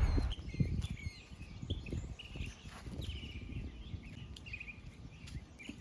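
Birds chirping in short repeated calls, with scattered low thumps and rumble underneath.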